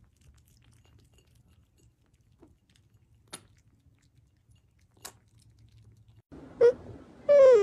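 A cat and kittens lapping milk from a bowl: faint, sparse licking clicks. Near the end a cat meows twice, a short meow and then a longer one falling in pitch.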